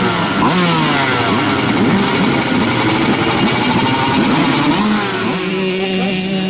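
Several small two-stroke youth motocross bike engines revving, their pitch rising and falling over each other. Near the end one settles into a steady idle.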